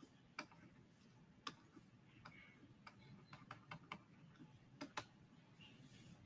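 Near silence with faint, irregular light clicks and taps, about a dozen scattered through the pause, two of the louder ones close together near the end.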